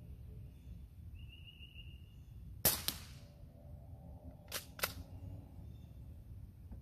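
Crosman 622 CO2-powered .22 pellet rifle firing a single shot about three seconds in, a sharp report. About two seconds later come two quick clicks, a quarter second apart, as the pump action is worked to chamber the next pellet from the rotary clip.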